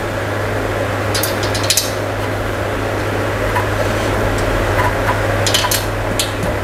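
Light metallic clicks and clinks from hands fitting a bolt into a metal dining-chair frame, a cluster about a second in and another near the end, over a steady low hum.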